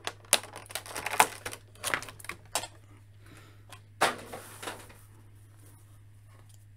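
Clear plastic blister tray crackling and clicking in the hands as a toy accessory is untwisted from it: a run of sharp crackles for about three seconds and a louder rustle about four seconds in, then only a low hum.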